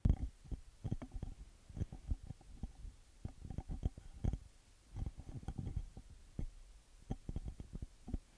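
Handling noise picked up by a shotgun microphone held in bare hands without a blimp: irregular low thumps and knocks as the fingers shift and grip along its body.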